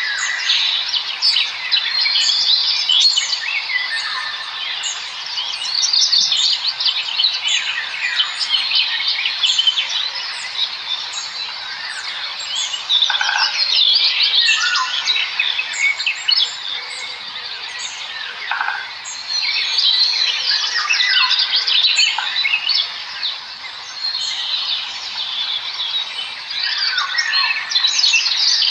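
Many small birds chirping and chittering at once, a dense, unbroken chorus of short, high chirps, with a few lower calls standing out here and there.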